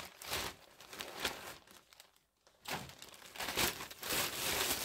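Plastic shopping bag crinkling as a hand rummages inside it. The crinkling comes in uneven bursts, stops briefly about two seconds in, then picks up again.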